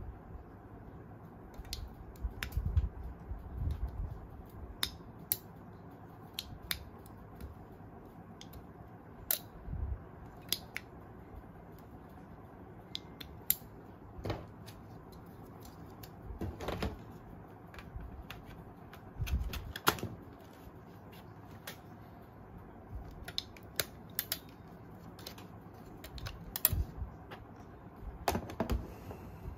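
Plastic toy-gun bipod being handled: irregular clicks and taps as its spring-loaded legs are folded and unfolded, with a few dull knocks.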